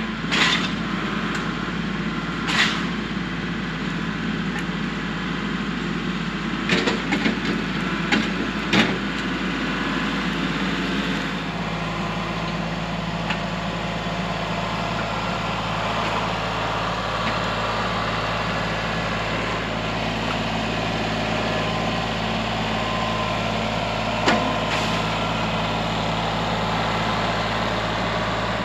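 Kubota L3301 tractor's three-cylinder diesel engine running steadily while working rough ground, its note shifting slightly about a third of the way in. A few short sharp knocks stand out over it: one at the start, a cluster a quarter of the way in, and one near the end.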